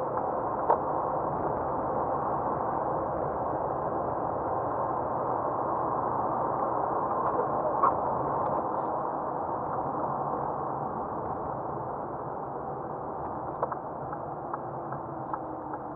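Car driving on a snow-covered road, heard from inside the cabin: a steady rush of tyre and engine noise, with a few sharp clicks, several of them close together near the end.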